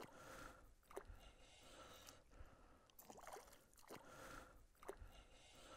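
Faint, irregular splashes of a large hooked perch thrashing at the water's surface on the line, several times over.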